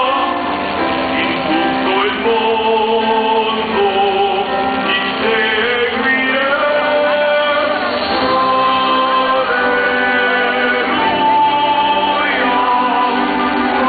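Choir singing a hymn with musical accompaniment, in long held notes.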